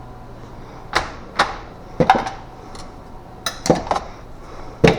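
Metal hand tools and small parts being handled and set down, clinking and knocking in a string of about nine sharp, separate knocks.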